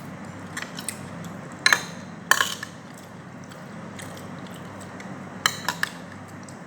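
Cutlery clinking against a plate while eating, in short groups of sharp clicks about two seconds in and again about five and a half seconds in, over a steady low hum.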